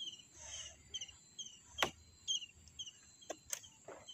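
Quiet outdoor background of short high chirps repeating about twice a second over a faint steady high whine, with a few sharp clicks, the loudest nearly two seconds in.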